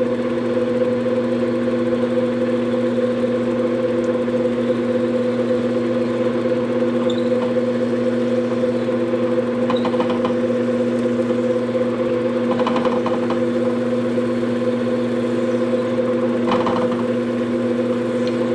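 Drill press motor running steadily with an even hum, while a 1/8 inch bit drills into a small piece of wood stock, with a few short spells of cutting noise partway through.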